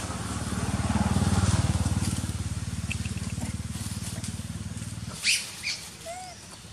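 A small engine running close by, a low pulsing hum that swells about a second in and stops abruptly about five seconds in. A short, sharp high squeak follows right after.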